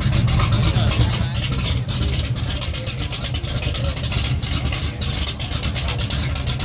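Supercharged 454 big-block Chevrolet V8 in a Monte Carlo drag car idling steadily with a rough, lumpy idle from a big cam, its exhaust pulses coming through loud mufflers as a deep uneven rumble.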